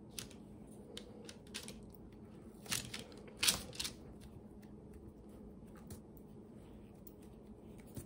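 Handling noise from fingers pressing and smoothing soft air-dry modelling compound (Crayola Model Magic) into a silicone mould on parchment paper: faint, with scattered soft clicks and two brief scraping rustles about three seconds in.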